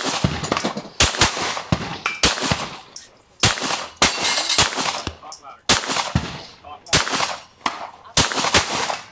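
Semi-automatic pistol firing a slow string of about eight shots, roughly one a second. Short high metallic rings follow several shots, from steel targets being hit.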